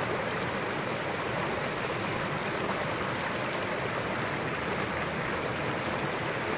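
Shallow mountain stream running over rocks and small riffles: a steady rush of water.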